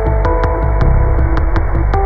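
Background music with held melody notes over a deep bass, and a light percussive tick about four times a second.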